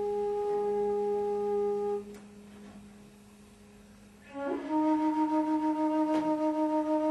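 Music: a flute-like wind instrument holding long notes over a low drone. One note stops about two seconds in, and after a quiet pause a new held note starts past the middle, wavering in loudness.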